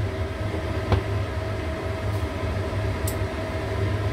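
Metal tongs clinking against the wok and steaming plate while picking steamed shiso leaves off the crabs: two short clicks, about a second in and again near the end, over a steady low kitchen hum.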